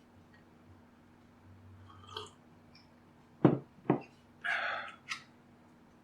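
Hand tools being handled on a workbench: two sharp knocks about half a second apart, then a short rustling clatter and a click.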